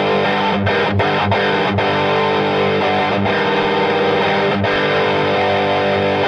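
Electric guitar played with a distorted lead tone, the EGO TM2's OD100 lead sound. It holds sustained notes and chords, with a handful of fresh picked attacks along the way.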